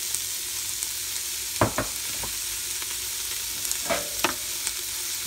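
Onions, peppers and garlic sizzling steadily in avocado oil in an Instant Pot's stainless inner pot on the sauté setting. Two pairs of sharp knocks come through the sizzle, about a second and a half in and again about four seconds in, as a spoon works at the pot.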